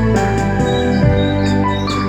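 Calm, slow instrumental music with sustained keyboard chords that shift about halfway through.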